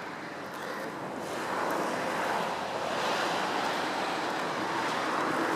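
Steady rushing of wind, swelling about a second in and then holding.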